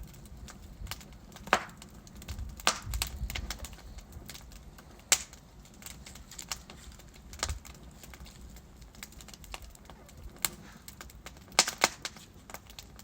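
Wood fire in a fireplace crackling, with irregular sharp pops and snaps from the burning logs over a low, faint rumble of the flames. The loudest pops come about a second and a half in, about five seconds in, and as a close pair near the end.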